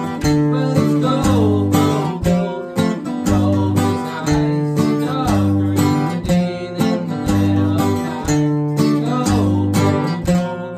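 Two acoustic guitars playing a song together: strummed chords in a steady rhythm over a moving bass line.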